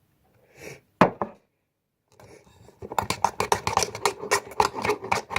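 A couple of sharp clicks, then from about three seconds in a rapid run of wet scraping, clicking strokes: a glue, water and shaving-foam slime mixture being stirred in a bowl.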